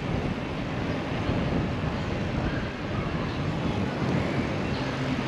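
Wind buffeting the microphone of a bicycle rider's camera, over a steady street noise of traffic, with no distinct events.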